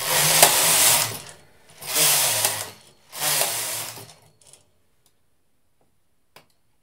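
Carriage of a Brother 950i standard-gauge knitting machine slid across the needle bed three times, knitting three rows. Each pass is a rasping mechanical run of about a second, and the third ends about four seconds in.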